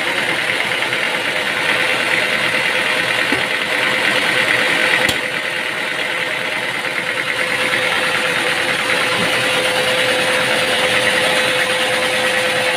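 Machinery engine running steadily with an even hum, and a single sharp click about five seconds in.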